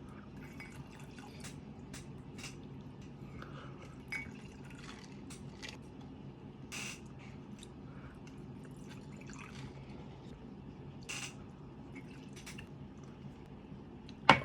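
Close-up wet eating sounds of stir-fried spicy pork being chewed: soft mouth clicks and smacks scattered over a steady low hum, with a loud sudden knock at the very end.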